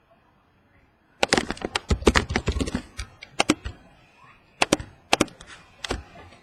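Typing on a computer keyboard: a quick run of key clicks, then a few short bursts of keystrokes.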